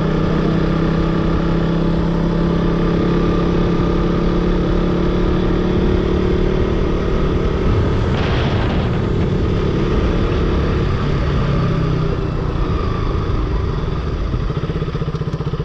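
Motorcycle engine running at a steady pitch while riding, with a short rush of noise about eight seconds in. Near the end the engine note drops to a lower, pulsing beat as the bike eases off.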